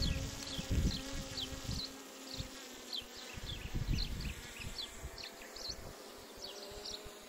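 DJI Mini 3 Pro quadcopter's propellers humming steadily as it climbs and flies off. Repeated short high chirps sound over it, and wind gusts buffet the microphone, loudest in the first second or so.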